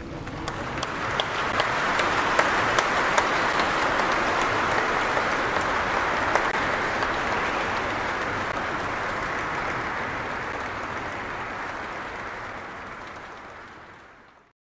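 Audience applauding, swelling over the first two seconds, holding steady, then fading away in the last few seconds.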